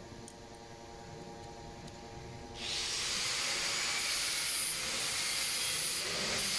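A low steady machine hum, then about two and a half seconds in a loud hiss starts suddenly and keeps going, with a few changes in its highest part.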